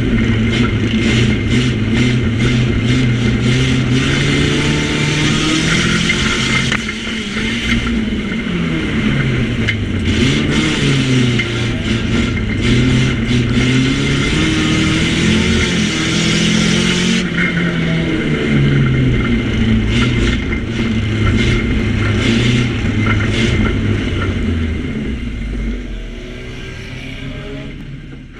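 Nissan Micra banger race car's engine heard from inside the stripped cabin, revving up and down as it is driven hard, with frequent sharp knocks and rattles. The sound fades out over the last few seconds.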